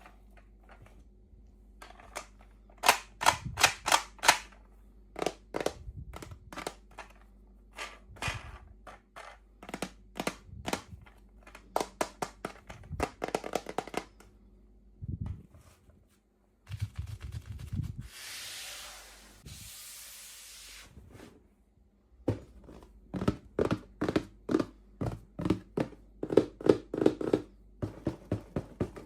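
Sharp clicks and taps of small plastic pieces and packaging being handled, coming in quick runs, with a few seconds of rustling, crinkling noise about two-thirds of the way through.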